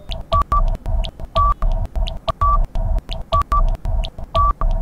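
Countdown timer sound effect: short electronic beeps and clicks over a low pulsing beat, repeating about once a second.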